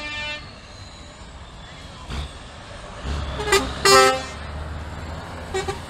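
Truck air horns sounding in short blasts: one held note cuts off just after the start, two loud toots come about halfway through, and a brief one near the end. Under them is the low rumble of a passing truck's diesel engine.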